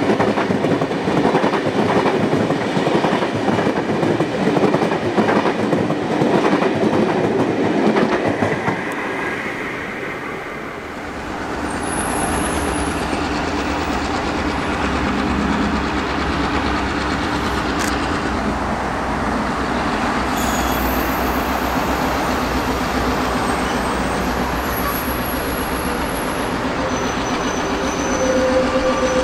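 Railway carriages rolling past with wheels clicking over rail joints, then a low, steady rumble of an approaching diesel locomotive. Birds chirp now and then over the rumble.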